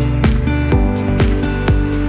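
Background music with a steady beat: deep bass drum hits that drop in pitch, about two a second, under held notes.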